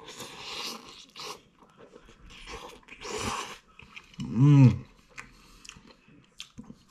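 A person slurping and chewing instant cup noodles, with wet sucking bursts at the start and again around three seconds in. There is a short hummed "mm" at about four and a half seconds.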